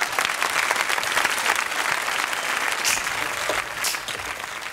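Studio audience applauding, loudest in the first two seconds and slowly tapering off.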